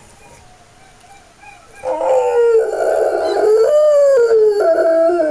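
A Rottweiler howling in response to a dog video playing on a laptop. One long howl starts about two seconds in, wavering and sliding down in pitch.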